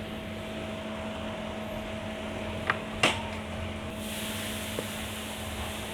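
Steady electrical hum with fan-like noise from workbench equipment, with two light clicks near the middle.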